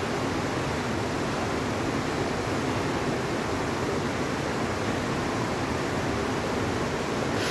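Steady, even rushing noise, unchanging throughout, with no speech or music.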